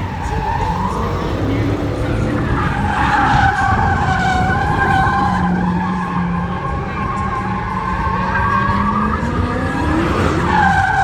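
Dodge Hellcat doing a burnout: tyres squealing in a long, loud screech over the V8 running at high revs, the engine pitch climbing and falling as the throttle is worked.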